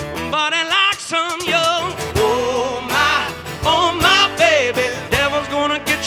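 Live rock band playing a song: a male lead voice singing with wide vibrato over acoustic and electric guitars, with drums and a tambourine keeping the beat.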